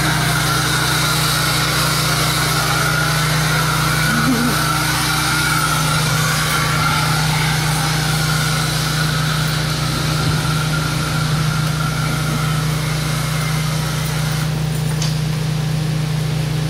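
A steady low mechanical hum with an even hiss over it, like a motor running without pause.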